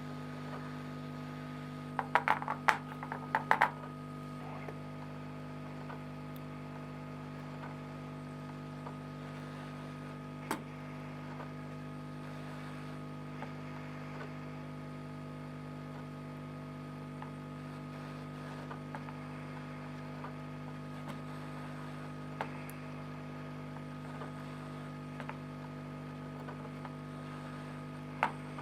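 Steady electrical hum throughout, with a quick run of sharp clicks about two to four seconds in and a few single clicks later, typical of a plastic ink cartridge being handled and pried apart.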